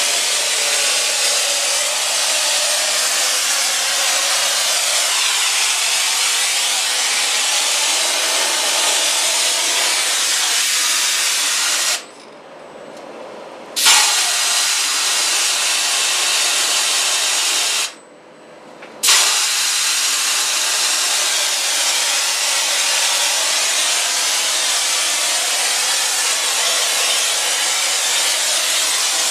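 Spray gun on a mortar spraying machine hissing steadily as it blows out a fine mist. The hiss cuts off twice, for about two seconds and then for about one, and comes back each time with a sharp burst as the trigger is pulled again.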